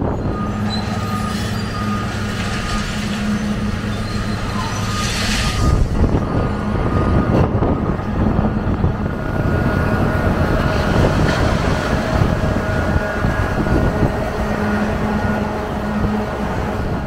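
Diesel demolition machinery running steadily, with a low engine hum under a rumble of wind on the microphone. A short hiss comes about five seconds in.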